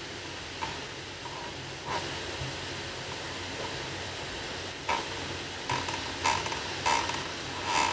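Logitech MX Master 3S mouse making soft, short clicks, about seven of them at uneven intervals and closer together in the second half, over a steady hiss.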